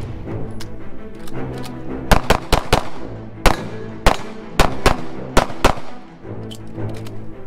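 CZ Shadow 2 9mm pistol firing a fast string of about a dozen shots, mostly in quick pairs, starting about two seconds in: a practical-shooting stage run. Background music plays underneath.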